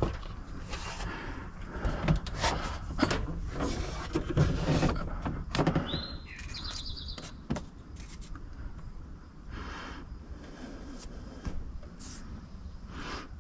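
A bird calling about six seconds in: a rising whistle followed by a quick run of high notes, with scattered clicks and knocks around it.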